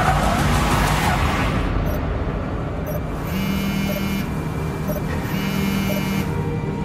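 Chevrolet Suburban driving away fast, its engine running and tyres rushing on the road, with two long electronic tones about a second each in the second half.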